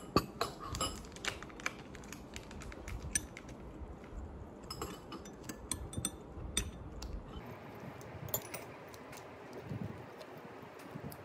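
Metal chopsticks and a spoon clinking and scraping against a ceramic bowl while eating: scattered light taps and clicks, coming more often in the first seven seconds.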